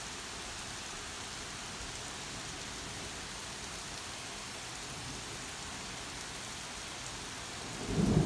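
Steady rain falling in a thunderstorm. Near the end a loud, deep rumble of thunder starts and grows.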